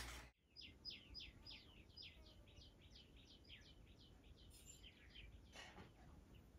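A bird singing faintly: a run of short notes, each sliding down in pitch, about four a second, trailing off after about four seconds.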